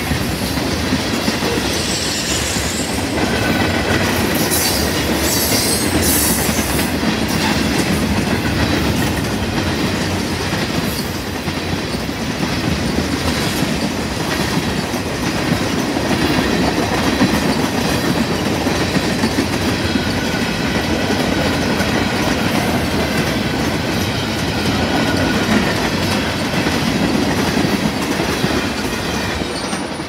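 Freight train tank cars rolling past on the rails: a steady, loud rumble with the clickety-clack of wheels over rail joints. It falls away at the very end as the last car goes by.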